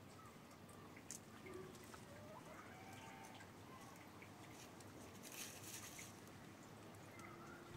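Near silence: faint yard ambience with a few small ticks and some faint, distant calls.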